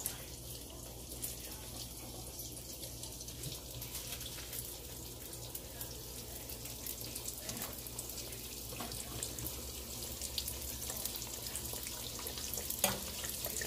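Biscuit-dough-wrapped Oreos deep-frying in hot canola oil: a steady sizzle full of fine crackling pops. A single sharp click near the end.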